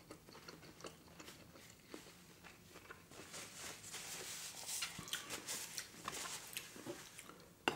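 Faint chewing with a few small clicks, then from about three seconds in a paper napkin rustling in the hands for several seconds.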